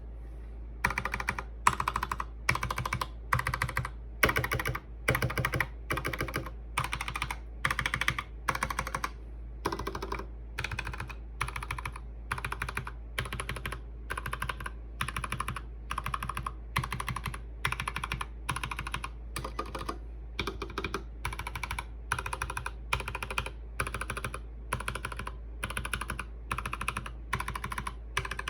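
Mechanical keyboard with Kailh Box Black linear switches being typed on steadily. The keystrokes come in quick clusters, one roughly every two-thirds of a second.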